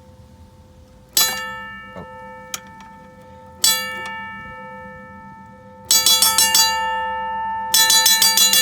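SafeTran mechanical railroad crossing bell striking in fits and starts: a single clang about a second in, another a couple of seconds later, then two short runs of rapid strikes near the end, each clang ringing on and fading. The bell is freshly wired and not yet ringing steadily.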